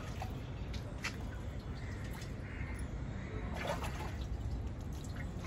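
Hands swishing and splashing in a plastic drum of stored rainwater, with a few small splashes, while a bird calls in the background.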